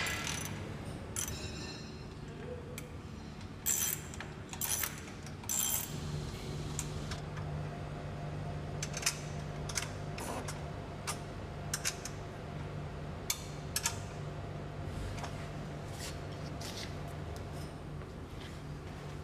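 Scattered metal clinks, taps and knocks of a tubular metal trolley frame being fitted together and bolted by hand, the loudest in the first few seconds, over a steady low hum.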